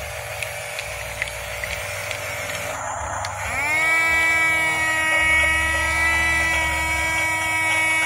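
Electric motors of a toy RC bulldozer whining as it drives, with faint regular ticking. About three and a half seconds in, a louder whine starts, rises in pitch, then holds steady.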